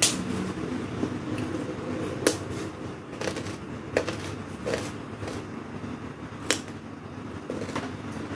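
Crisp crunches of biting and chewing raw vegetables, five sharp cracks spaced a second or two apart, over a steady low background hum.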